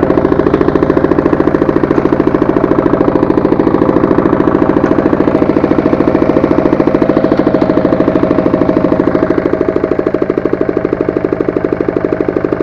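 Walk-behind tractor engine running steadily, with a rapid even pulse, as it drives a rotary tiller; the level eases a little near the end.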